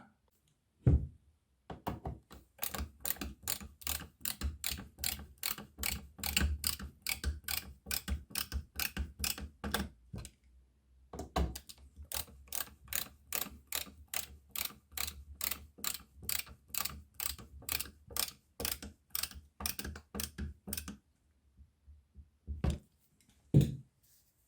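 Ratchet screwdriver clicking steadily, about three clicks a second, in two runs with a short pause between them, as screws are driven in to fix a magnetic catch's metal plate.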